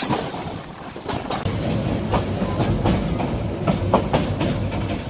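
The Cox's Bazar Express passenger train rolling along the track: wheels clacking over rail joints at irregular intervals over a steady low rumble.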